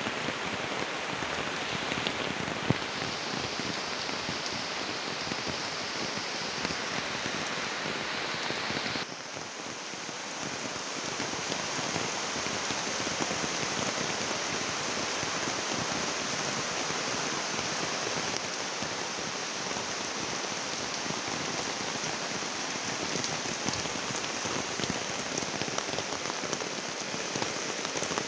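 Steady rain falling on garden plants and paving: a dense, even hiss of drops with fine individual patters. About nine seconds in the sound changes abruptly, dipping briefly and then becoming a brighter hiss.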